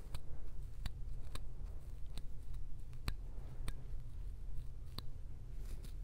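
Fingernails scratching a dandruff-flaked scalp through short, coarse hair: about seven sharp, crackling scrapes, spaced unevenly about half a second to a second apart, over a steady low rumble.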